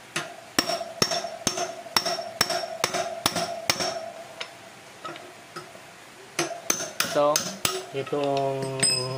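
Hammer tapping a metal part into a motorcycle wheel hub: eight ringing metal strikes about two a second, a pause of a couple of seconds, then five more in quicker succession.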